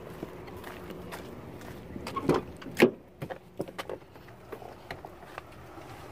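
A pickup truck's cab door being opened and shut as someone climbs in: two loud knocks a little over two seconds in, the second and louder one the door closing, followed by a few small clicks and rustles inside the cab.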